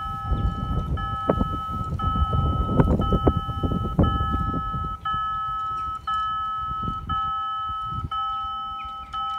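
Level crossing warning bell of a BUES 2000 crossing system ringing a repeated electronic tone about once a second, the sign that the crossing is activated for an approaching train. Low rumbling and scattered knocks sound under the first half.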